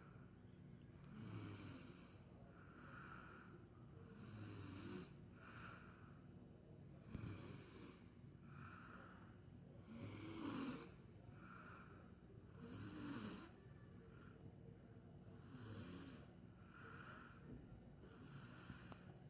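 A person snoring softly while asleep: a snore on each in-breath about every three seconds, with a quieter breath out between them.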